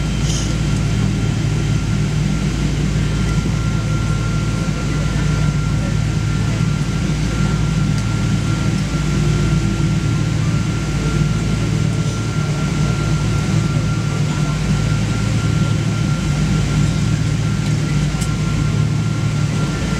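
Steady low cabin hum inside a Boeing 777-200 taxiing in after landing, with a faint steady whine above it.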